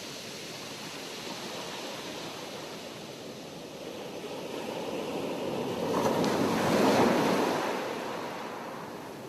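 Sea surf on a shore: the wash of the waves builds to one wave breaking loudest about two-thirds of the way through, then recedes.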